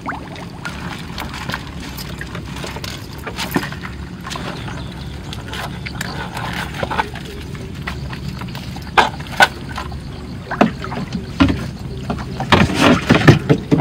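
Water sloshing and splashing with knocks and clatter as a fish trap is handled and emptied, over a steady low hum. Louder splashes and knocks come about nine seconds in and again near the end.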